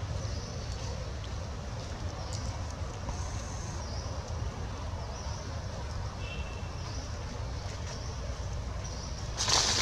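Outdoor background sound: a steady low rumble, with faint short high chirps about once a second and a brief loud noise near the end.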